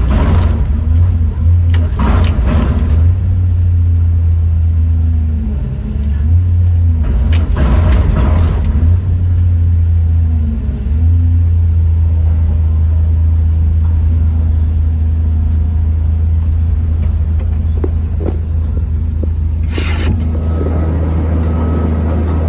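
Heavy machine's diesel engine running with a steady low drone, which dips briefly twice. Short bursts of scraping or clanking noise come through a few times, loudest at about 8 and 20 seconds in.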